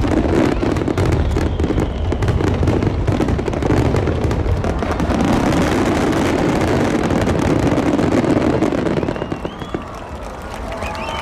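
Aerial fireworks going off in a dense, continuous barrage of booms and crackles. About nine seconds in the bursts die away and crowd voices start to come through.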